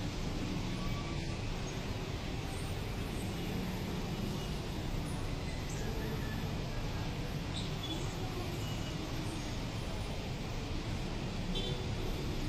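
Steady outdoor background noise, a low even rumble of the traffic kind, with a few faint high chirps scattered through it.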